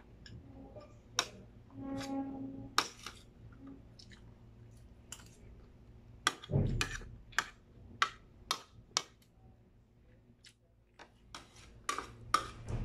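Metal spoon clinking and scraping on a ceramic plate, a dozen or so sharp clicks, while a man eats rice and fried chicken, with some chewing. There is a short low hum about two seconds in and a dull thud about six and a half seconds in.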